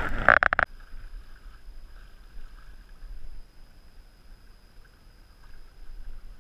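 A kayak on choppy sea water, with low-level water sloshing and wind noise. A loud rush of noise opens the sound and cuts off abruptly in under a second.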